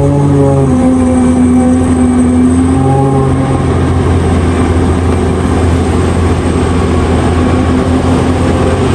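Heavy diesel mining machinery running steadily with a loud continuous drone, its low pitch shifting about a second in and again about three seconds in.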